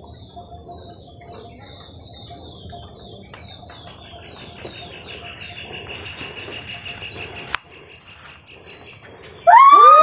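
Insects chirring in high, pulsing trills over a low rumble, broken by a sharp click about seven and a half seconds in, after which it drops quieter. Near the end a group of boys breaks into loud shouting and cheering.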